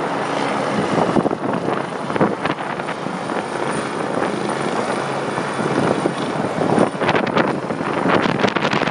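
NYPD helicopter's rotor and engine noise, loud and steady, with a run of rapid sharp pulses in the last two seconds.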